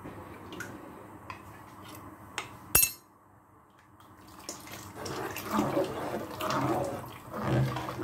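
Liquid poured from a ceramic bowl into a cooking pot, with a metal spoon tapping and scraping against the bowl; a sharp clink comes a little before the sound drops away for about a second near the middle.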